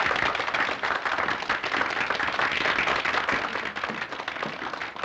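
A roomful of onlookers clapping their hands along to a man's stamping dance, a dense spread of many claps.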